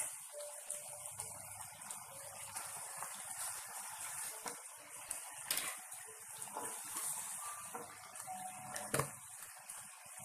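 Stir-fried vegetables sizzling with a steady hiss in a wok, with a spatula scraping through them and knocking against the pan a few times.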